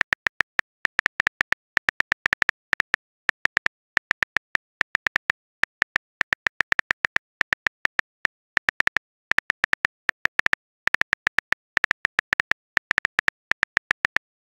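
Phone keyboard key-tap clicks as a text message is typed letter by letter: many short, identical sharp clicks in irregular bursts of several a second, with brief pauses between words.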